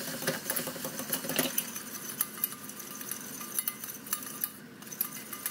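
Wire whisk beating flour into melted butter in a stainless steel saucepan to make a roux: a quick, uneven run of light metallic clicks and scrapes as the wires strike the pan.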